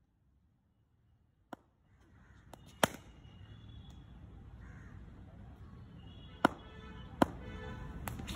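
Sharp single knocks of a cricket ball in practice nets, on the bat or the concrete pitch. The loudest comes about three seconds in and three more follow near the end. Faint bird calls can be heard under them.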